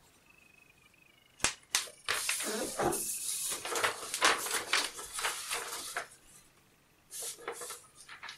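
Sheets of paper rustling and crackling as they are handled and folded, with two sharp taps about a second and a half in. The rustling runs for about four seconds, pauses, and starts again near the end.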